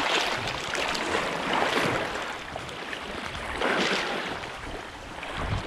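Sea waves washing against shore rocks in choppy water, surging three times about two seconds apart, with wind rumbling on the microphone.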